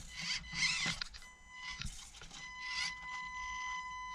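Axial SCX24 Deadbolt micro RC crawler driving: its small electric motor and gear drive give a steady high whine that drops out and comes back as the throttle is worked, with short scraping and grinding bursts from the tyres and chassis clawing over the course.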